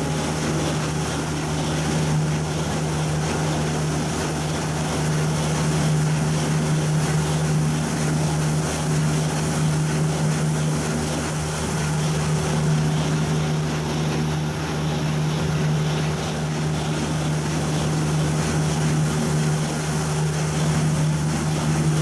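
Desna-Polesye combine harvester running steadily while its unloading auger pours flax seed into a truck bed: a constant, even machine drone.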